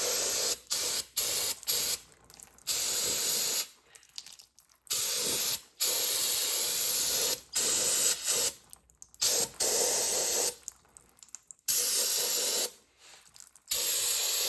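Aerosol can of brake cleaner spraying in repeated bursts, some short blips and some held for a second or more, to flush oil out of a Predator 212 engine's open crankcase.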